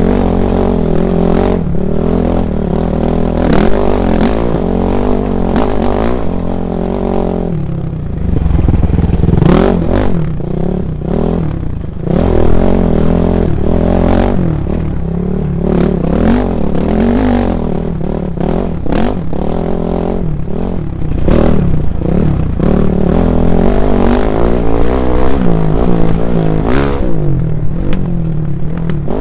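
Dirt bike engine running hard along a rocky trail, revving up and easing off again and again as the rider works the throttle, with rocks and the bike clattering and knocking over the rough ground.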